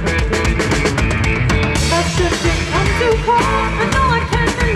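Live rock band playing: electric guitars over a drum kit, with a woman's voice coming in about halfway through, its pitch wavering.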